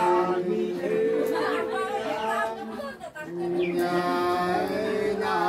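Two men singing sli, the Nùng people's unaccompanied two-voice folk song, holding long drawn-out notes together in harmony. The singing breaks off briefly about three seconds in and then resumes.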